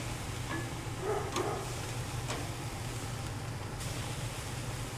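Beef tenderloin sizzling on a hot grill grate, over a steady low hum, with a couple of faint clicks.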